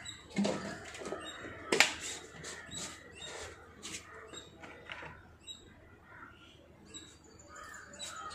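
Clear plastic jar with an orange screw cap being handled: the cap is fitted and the jar picked up, giving scattered plastic clicks and knocks, with one sharp clack about two seconds in.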